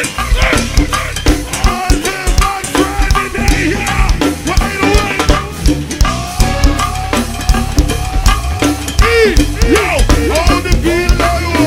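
Go-go band music: drum kit and percussion playing a steady, driving beat with a pitched melodic line over it, which slides up and down in pitch about nine seconds in.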